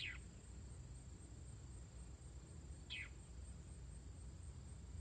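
Faint steady high-pitched insect trill, with two short, steeply falling bird calls about three seconds apart.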